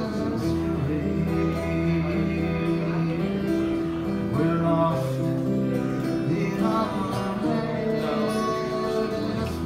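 Twelve-string acoustic guitar playing an instrumental break in a slow, jazzy song, over held chords and a steady bass line.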